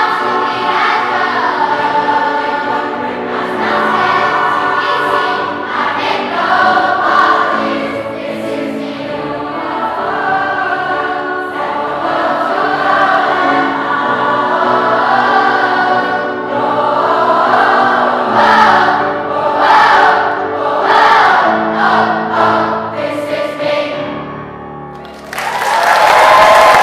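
A large choir of adults and children singing together. Near the end the song finishes and the audience breaks into applause.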